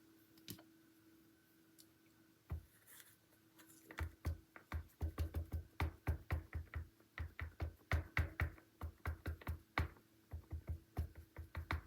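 Hand-crafting sounds on a work table: a run of quick, irregular taps and knocks, several a second, starting about four seconds in and stopping just before the end, over a faint steady hum.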